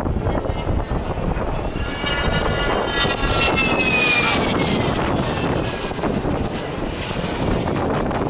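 Jet aircraft flying past with a steady engine rush, its high whine falling slowly in pitch from about two seconds in as it passes.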